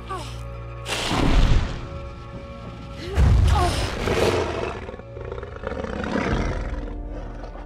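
A large dragon roars twice, loudly, about one second in and again about three seconds in, each call sliding down in pitch. Sustained film-score music plays underneath.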